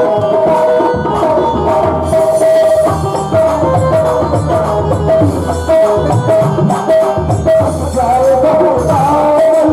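Krishna bhajan music: a melody of held notes stepping up and down over hand drums and small rattling percussion, in a steady beat.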